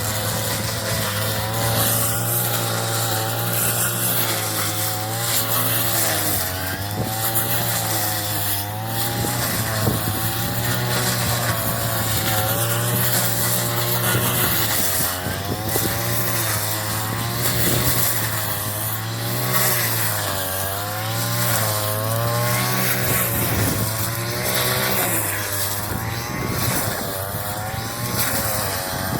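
Engine-powered straw-cutting machine running steadily while cutting rice straw, its engine note rising and falling every second or two as the load changes.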